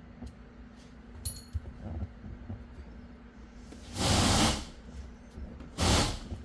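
Small clicks and a metallic clink of parts and tools being handled, then two loud, short hissing bursts of noise about two seconds apart.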